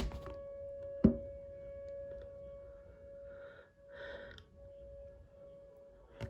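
Outdoor tornado warning siren holding one faint, steady tone, with a sharp knock about a second in and two short breaths around the middle.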